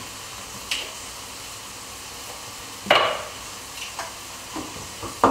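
Bacon sizzling steadily in a frying pan, with utensil clinks against a bowl of eggs: a light click about a second in and a louder knock about three seconds in.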